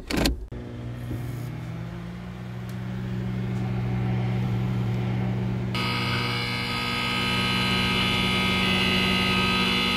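Laboratory machinery sound effects: a loud clunk as a switch is thrown, then a low electrical hum that builds up. About six seconds in, a high electrical buzz of many steady tones joins the hum.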